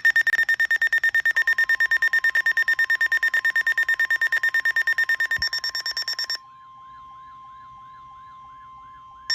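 Electronic weather-alert alarm beeping rapidly, about eight buzzy pulses a second, over the steady single-pitch NOAA Weather Radio attention tone that starts about a second and a half in. The beeping breaks off for about three seconds near the end, leaving the attention tone alone, then starts again.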